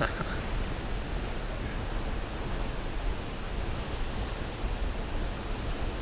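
An insect's steady high-pitched trill, running in long stretches of two to three seconds with short breaks, over a steady rushing noise.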